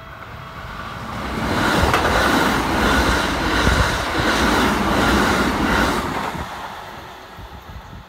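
Keikyu electric commuter train passing close by over a level crossing. It builds to a loud rush with the wheels clacking over the rail joints in a steady rhythm, then fades away as it goes.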